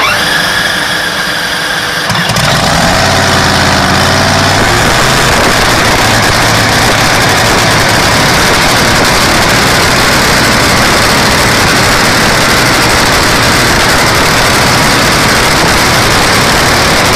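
A Top Fuel dragster's supercharged V8 starts up. After about two seconds of a starter-like whine the engine catches, then runs at a very loud, steady idle.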